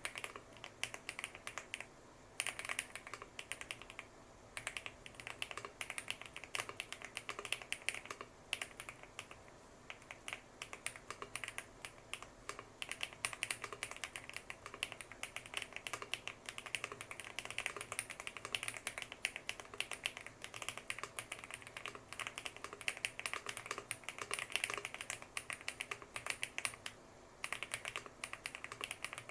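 Fast, continuous typing on a Lucky65 V2 aluminium-case gasket-mount mechanical keyboard with HMX Purple linear switches and Cherry-profile polycarbonate keycaps, a dense run of keystroke clacks broken by a few short pauses.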